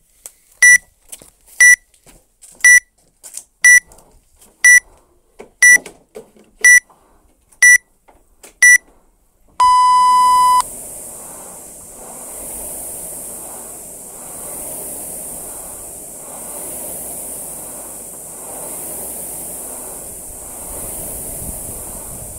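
Workout timer app beeping a countdown, ten short high beeps a second apart, then one longer, lower start beep. After that a rowing machine's fan flywheel whooshes, swelling with each stroke about once every two seconds.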